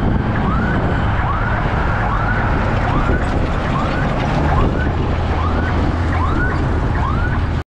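Steady low road rumble of engine and tyres while driving close behind a multi-axle cargo truck. Over it, a short rising-then-falling chirp repeats about once or twice a second.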